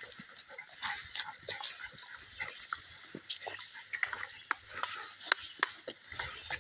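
Footsteps and a small dog moving over dry twigs and leaf litter on a forest trail: a run of irregular crackles, with the dog's snuffling breaths among them.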